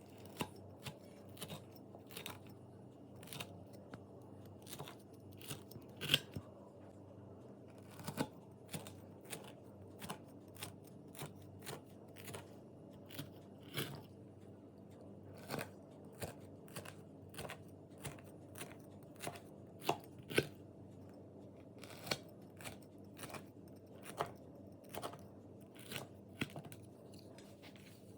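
Crisp baked kunafa crunching in short, sharp crackles, about one or two a second, as it is cut into.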